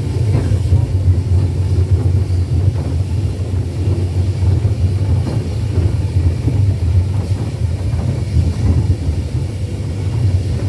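Steam tank engine under way, heard from the cab: a steady, loud low rumble of the locomotive running along the track.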